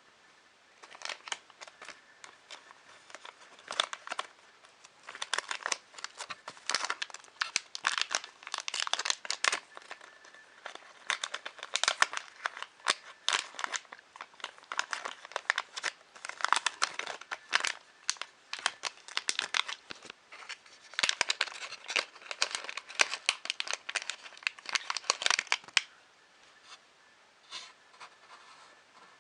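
Plastic packaging crinkled, crackled and torn by hand in a long run of irregular rustling, which stops shortly before the end.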